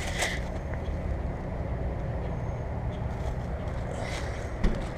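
2008 Goodman central air conditioner's outdoor condensing unit running: a steady low hum from its fan and Copeland scroll compressor, with a short click near the end.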